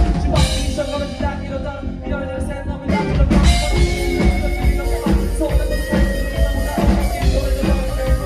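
Live band playing with drum kit, bass and sustained melodic notes over a steady beat.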